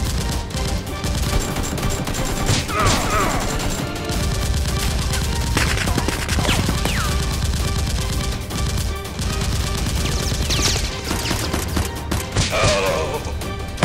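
Rapid, continuous volleys of gunfire over background music, with a few falling swoops in pitch.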